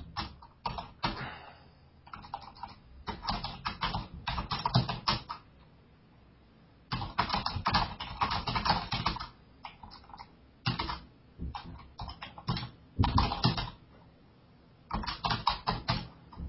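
Typing on a computer keyboard in quick bursts of keystrokes, with short pauses between the bursts and a longer pause a little past halfway.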